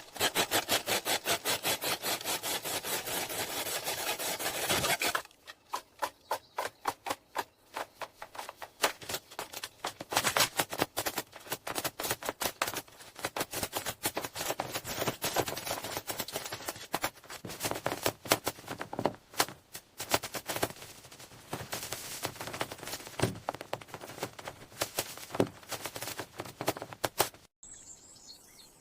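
Rapid rubbing and scraping strokes of a hand tool working wood: a fast, even run of strokes for about five seconds, then sparser, irregular strokes that stop abruptly near the end, where a bird chirps.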